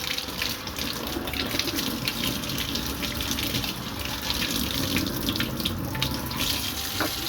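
Tap water running steadily and splashing over a Dyson robot vacuum filter being rinsed clean in a sink.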